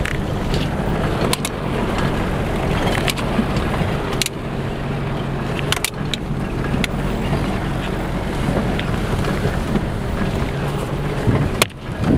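4x4 off-road vehicle driving over a rough gravel track: a steady engine hum and road noise, with scattered knocks and rattles from the bumps.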